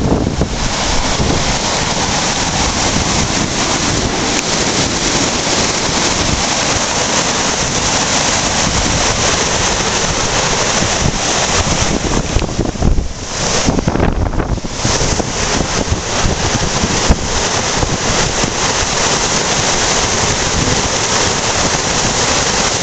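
Floodwater of a swollen creek rushing and churning in white-water rapids past a low concrete bridge: a loud, steady roar of water, briefly duller about halfway through.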